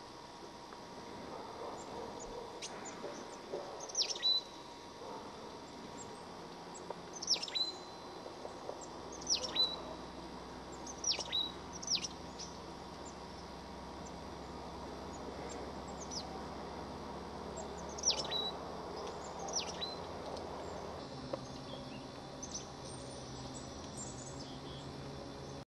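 A small bird giving high, sharp down-slurred call notes, singly or in quick pairs, about a dozen of them spread through the stretch, over steady low background noise.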